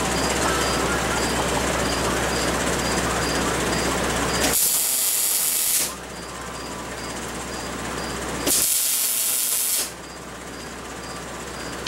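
Arc welding on steel: two short bursts of welding hiss and crackle, each a little over a second long, as the weld is laid on in short runs. A steady hum runs underneath.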